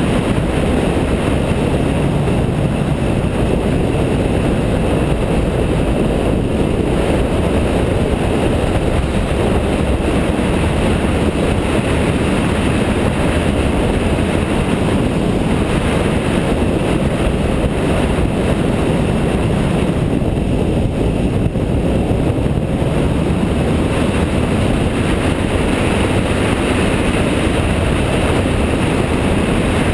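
Steady, loud wind and road rush from a BMW F650GS motorcycle at cruising speed, its engine blended into the noise.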